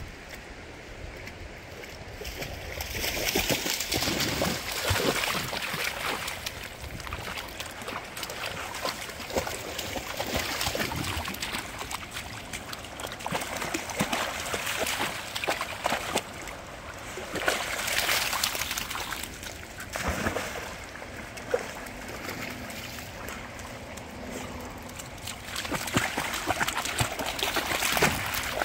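Dogs wading and splashing in the shallows of a fast-flowing creek, over the steady rush of the running water; the splashing grows louder several times.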